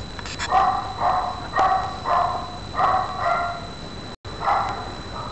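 A run of short, pitched animal calls, about two a second, stopping about four and a half seconds in.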